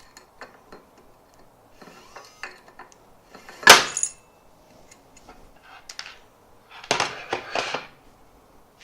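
Small tools and metal parts being handled on a work surface: scattered light clicks and clinks, one sharp knock about four seconds in, and a short run of clattering near the end.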